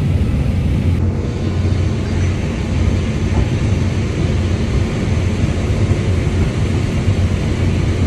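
Claas Lexion 8600 combine running steadily while harvesting corn, an even low drone heard from inside the cab.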